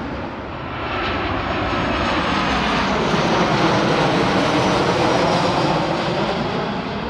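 Boeing 737 airliner's jet engines passing low overhead on landing approach: a steady rushing roar that builds from about a second in, peaks midway and fades toward the end.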